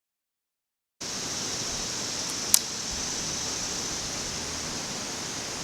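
Air rifle firing once, a short sharp crack about two and a half seconds in, over a steady hiss that starts after a second of dead silence.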